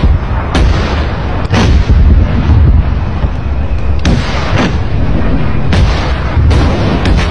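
Battlefield gunfire: about seven sharp shots at irregular intervals, roughly one every second or so, over a constant low rumble.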